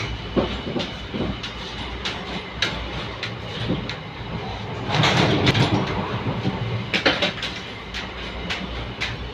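Inside an Indian Railways AC sleeper coach: a steady low rumble with scattered knocks and clicks as a coach door is handled and passed through, and a louder rush of noise about five seconds in.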